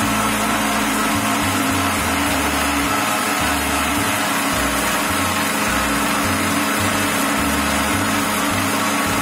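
Electric mixer grinder running steadily at speed, its stainless steel jar blending mint leaves, lemon juice, sugar and water into a liquid.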